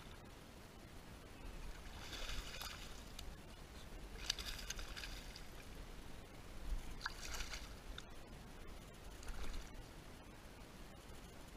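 Kayak paddle strokes splashing in the water, four strokes about two to two and a half seconds apart.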